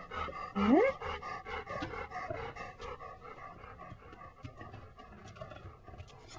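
English Pointer panting quickly, with a short rising whine just under a second in; the panting grows fainter after about three seconds.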